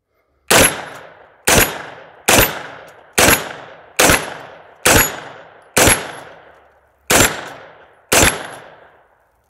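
Nine semi-automatic shots from a PSA FM9 9mm AR pistol with a 10.5-inch barrel, fired at a steady pace of about one a second, each shot trailing off in echo.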